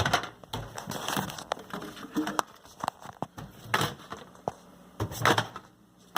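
Irregular clicks, knocks and light clatter of handling around a microwave oven as bread is put in and the door and controls are worked, with no steady running hum.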